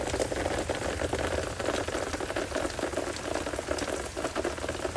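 Heavy rain pattering steadily on a hard surface, a dense crackle of drops, over a steady low rumble.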